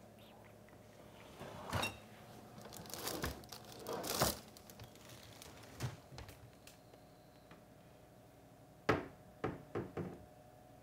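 Rummaging through kitchen cupboards: scattered knocks, rustling and clatter of containers being moved about, with a run of three or four quick knocks near the end.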